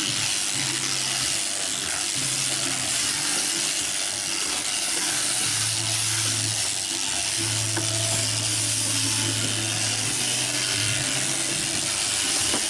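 Sheep crutching machine with its shearing gear running: a steady high hiss under a low hum that starts, stops and shifts pitch several times.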